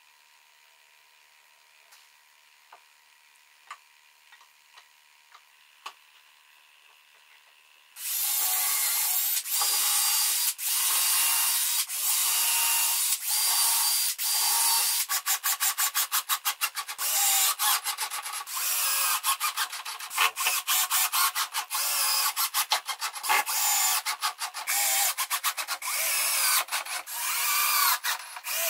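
After several seconds of near quiet with a few faint clicks, a cordless drill starts suddenly, boring holes into the pallet-wood leg's rail. It runs steadily at first, then in many short bursts of the trigger.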